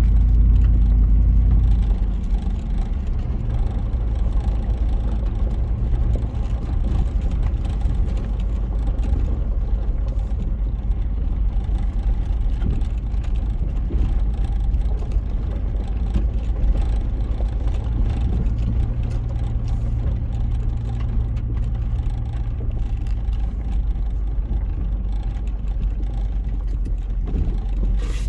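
Pickup truck driving slowly over a rough dirt trail, heard from inside the cab: a steady low engine and road rumble, a little louder in the first couple of seconds, with frequent small knocks and rattles as it goes over bumps.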